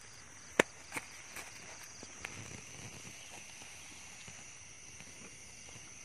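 A steady, high-pitched insect chorus in the background. One sharp click or knock comes about half a second in, followed by a few fainter clicks.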